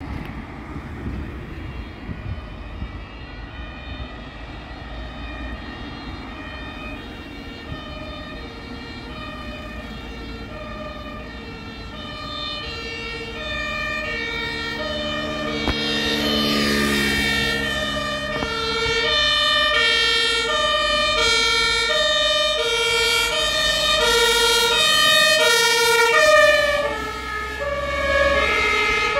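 German two-tone emergency vehicle sirens (Martinshorn) alternating between two pitches, growing louder as the vehicles approach. About halfway through, a vehicle passes close with a rush of engine and tyre noise. Toward the end, more than one siren sounds at once, out of step.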